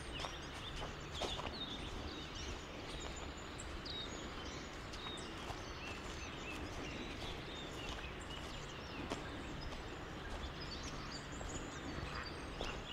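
Open-air ambience: a steady background rush with small birds chirping on and off throughout, and a few soft footsteps from someone walking.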